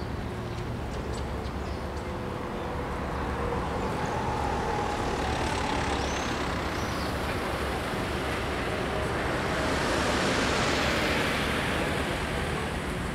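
Street traffic: cars driving past, with engine and tyre noise that builds to its loudest about ten seconds in as a car passes close.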